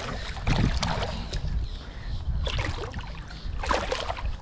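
Water splashing as a hooked channel catfish thrashes at the surface and is grabbed by hand, in several splashes: about a second in, around two and a half seconds, and a stronger one near the end, over a steady low rumble.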